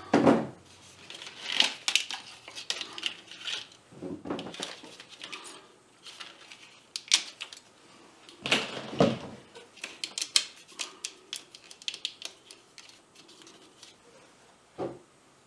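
Nylon zip ties being worked around a mower's wiring: irregular clicking from the ties being pulled through their catches, in quick runs, with rustling of plastic and cable. There are a few louder knocks near the start and about halfway through.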